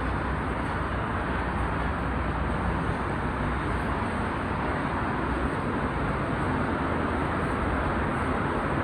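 Steady road traffic noise, an even rush of passing vehicles.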